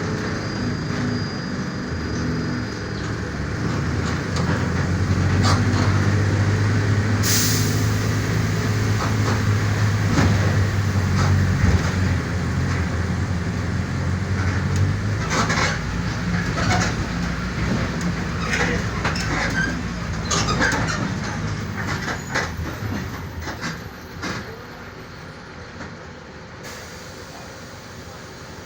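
Mercedes-Benz OF-1418 bus's diesel engine running under load, growing louder a few seconds in and holding there, with scattered clicks and rattles. Near the end the engine eases off and the sound falls quieter.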